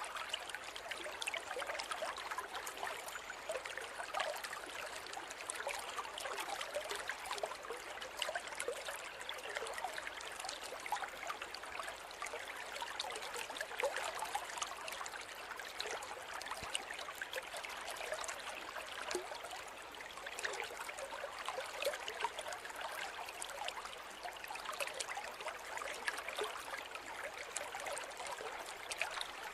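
River water flowing steadily over stones, a continuous babbling with many small splashes and little deep rumble.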